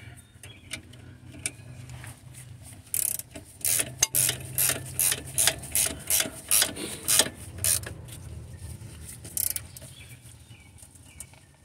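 Hand ratchet wrench clicking in a run of strokes, about two a second, as it is swung back and forth on a bolt of the engine torque mount.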